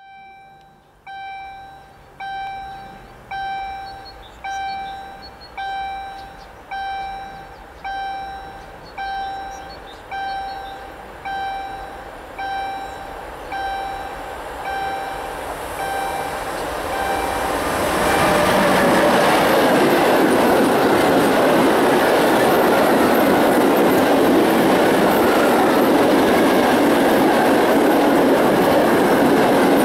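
A bell dings about once a second, each stroke ringing and dying away, typical of a level crossing warning bell, while the noise of an approaching train grows under it. About 18 seconds in the Bombardier Traxx electric locomotive reaches the microphone, and a long train of open freight wagons rolls by with a loud, steady rumble of wheels on rail.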